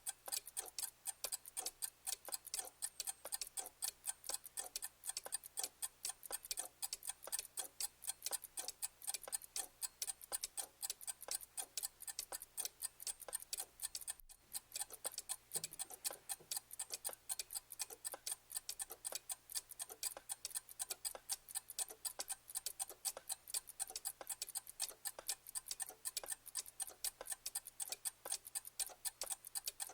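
Clock ticking steadily, a quick, even run of sharp ticks several times a second, with a momentary break about halfway through.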